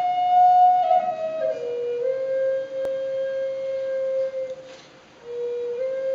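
A flute playing a slow melody of long held notes, stepping down in pitch about a second and a half in. There is a short pause near the end before the playing resumes.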